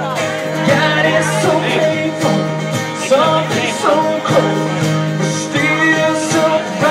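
A band playing a country-style song: a singer's voice over guitar and a steady bass note.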